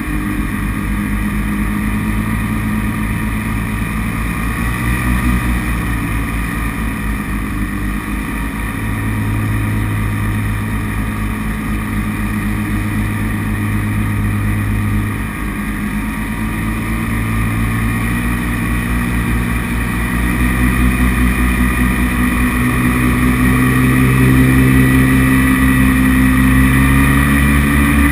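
Paramotor engine and propeller running steadily in flight, the pitch drifting with the throttle; it gets louder and a little higher in the last several seconds.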